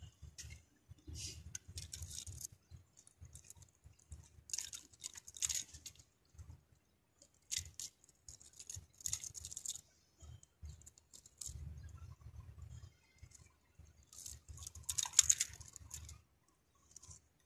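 Irregular bursts of close rustling and crackling with light clicks as hands work at a fishing rod and its tackle, with dull low bumps in between. The loudest burst comes about fifteen seconds in.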